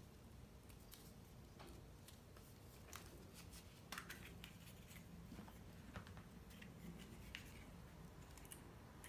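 Faint, irregular clicks and light rustling of hollow plastic Easter eggs and string being handled, threaded and tapped together, with a low room hum underneath.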